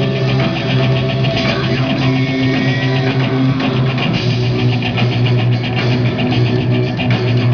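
Live rock band playing loudly: electric guitar, bass guitar, keyboard and drum kit, with regular cymbal strokes keeping the beat.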